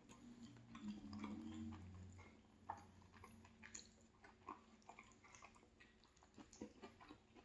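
Faint close-up chewing: soft, scattered wet mouth clicks of a person eating, with a low hum during the first two seconds.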